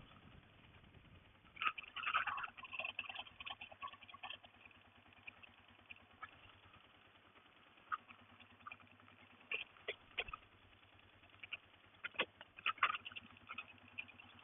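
A faint engine running steadily at low idle, with scattered crackles and clicks over it, busiest about two seconds in and again near the end.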